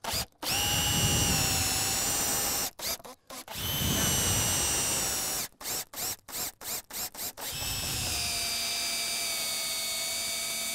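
Makita cordless drill driving long screws into wooden fascia: the motor whines in three long runs, with quick short bursts of the trigger between them.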